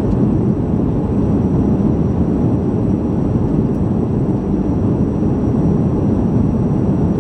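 Cabin noise of a Boeing 737-300 in flight: a steady, loud, low rush of its CFM56-3 turbofan engines and the airflow over the fuselage, heard through the cabin wall.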